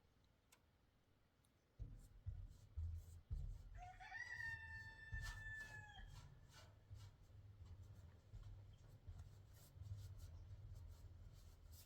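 A rooster crows once, a single long call starting about four seconds in and lasting about two seconds, over a steady low rumble.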